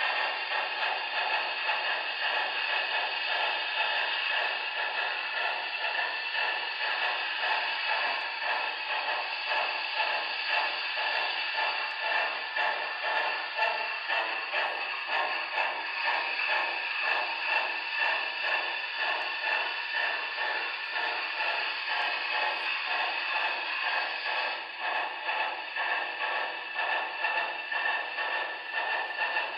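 Model train running on the layout: a steady hiss with a fast, even rhythmic pulsing running through it.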